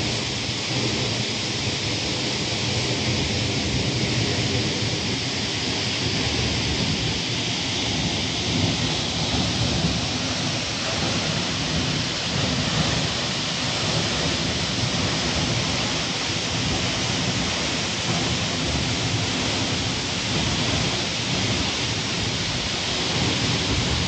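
Waterfall pouring onto rock and into a pool: a loud, steady rush of falling water.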